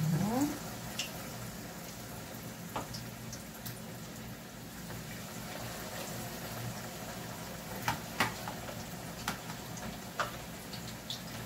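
Breaded chicken cordon bleu rolls frying in hot oil in a pan: a steady sizzle with scattered sharp pops and clicks. A brief rising sound comes right at the start.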